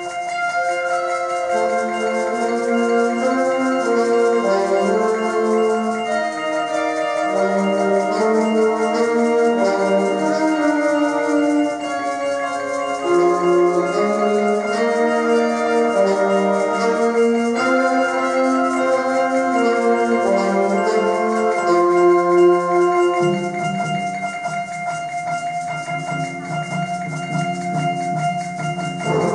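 A high school symphonic band playing: woodwinds and brass in moving melodic lines over held notes, with a lower held part coming in about three-quarters of the way through.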